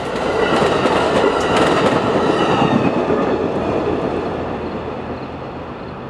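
Three-car passenger train rolling past, its coach wheels clicking over the rail joints. The rumble fades steadily as the train moves away.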